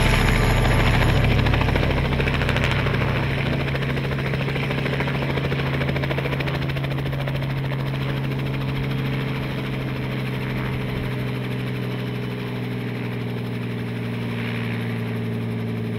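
Small two-bladed helicopter running, its rotor beating in a fast even chop over a steady low engine drone, as it comes in to land.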